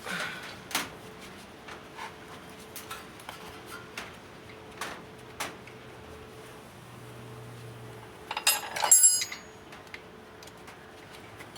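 Scattered metal clicks and taps of hand tools and brake caliper parts being handled, with a louder metallic clatter that rings briefly about eight and a half seconds in.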